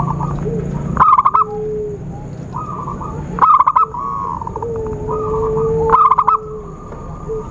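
Zebra dove cooing: three loud bursts of rapid staccato notes about two and a half seconds apart, with softer, longer coo phrases in between.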